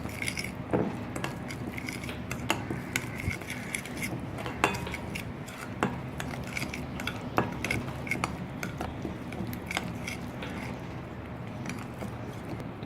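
A spoon stirring a thick yogurt-and-spice marinade in a bowl, with irregular light clinks of the spoon against the bowl.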